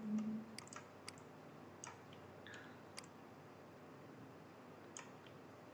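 A handful of soft, irregular computer mouse clicks over faint background hiss.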